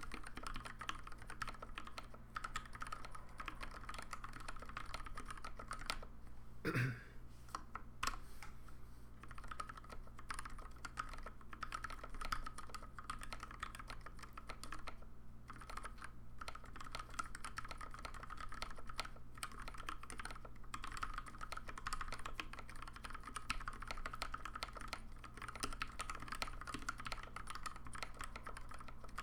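Continuous typing on a custom Alice-layout mechanical keyboard with lubed Gateron Pink switches, 72 g springs and PBT keycaps: a fast, even stream of keystrokes, with one louder, deeper knock about seven seconds in.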